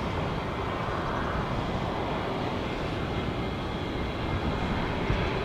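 Jet airliner taking off at full power, a steady engine rumble with a higher whine that slides down in pitch over the first few seconds as it lifts off and climbs away.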